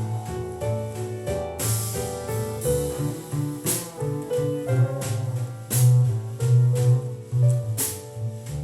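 Recorded jazz ballad in an instrumental passage: piano playing over a bass line, with a few cymbal strokes.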